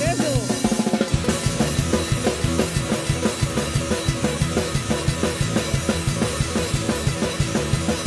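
Punk band playing live, driven by a fast, steady drum-kit beat of bass drum and snare, about four strokes a second, under guitars; the full beat comes in about a second in.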